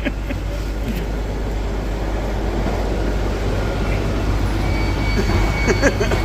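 Bus engine idling, a steady low rumble, with a faint high steady whine joining about five seconds in.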